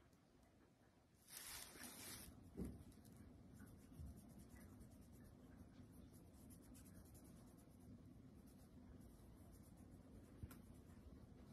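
Near silence with faint rustling and rubbing, like fabric being handled: a brief scratchy rustle about a second and a half in, followed by a soft thump.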